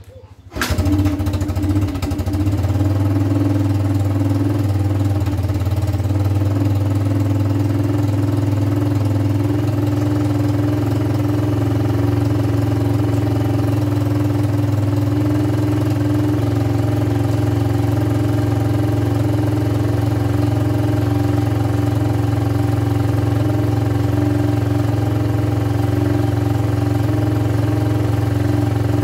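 Linhai ATV engine starts about half a second in and settles into a steady idle.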